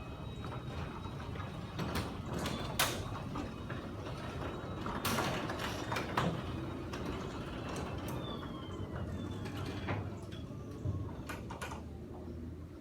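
Sommer Evo+ 2060 garage door opener running a sectional garage door through its travel: a steady low motor hum with scattered clicks and knocks from the door and track.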